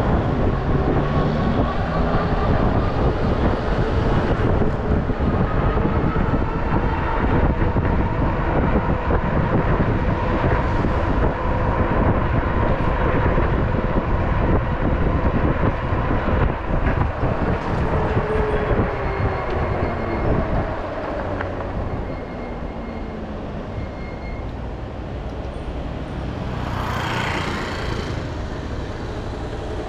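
Riding noise from a moving electric bike: wind rumble on the microphone with a thin steady whine, likely the motor, that falls in pitch about two-thirds of the way through as the ride slows and gets quieter. A short hiss comes near the end.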